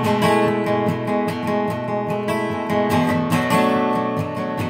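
Steel-string acoustic guitar strummed in a steady rhythm.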